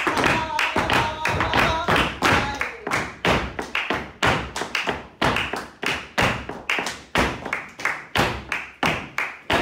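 Flamenco footwork (zapateado): dancers' shoes strike the floor in a quick, steady rhythm of several sharp taps and stamps a second in 12/8 compás, mixed with some hand claps (palmas).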